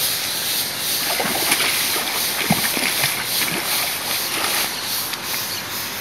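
Pond water splashing and sloshing as a hooked fish thrashes at the surface and is scooped into a landing net. A run of short splashes comes in the first half, over a steady hiss.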